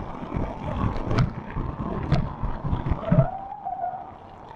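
Water-play area ambience through a wet action-camera microphone: irregular low rumbling and thuds, two sharp taps about one and two seconds in, and a brief high call, like a distant child's shout, around three seconds in.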